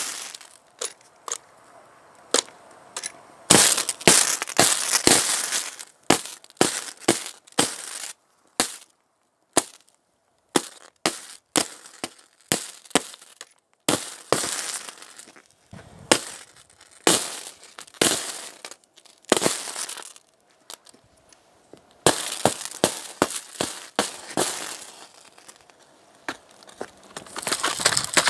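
High-current DC arcing from four lead-acid batteries wired in series, a rod on the cables shorting through a laptop: a rapid string of sharp electrical cracks and sputtering bursts, some running on for a second or two as continuous crackle, with short gaps between. The short-circuit current is probably in excess of 1000 A, and it sets the laptop's metal casing on fire.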